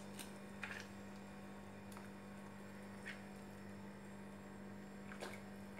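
A steady low hum, with a few faint soft splashes as pieces of raw meat are dropped by hand into a pot of boiling water.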